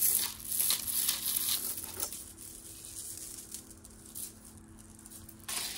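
Plastic costume jewelry being handled: a rustling, clicking clatter of plastic pieces knocking together, loudest in the first two seconds, then quieter handling.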